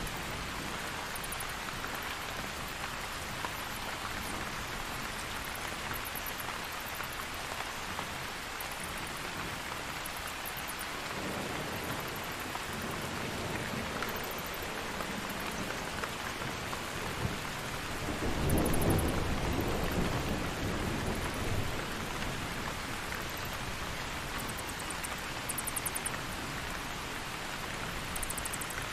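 Steady rain with a low rumble of thunder about two-thirds of the way through, and short high-pitched bat squeaks now and then.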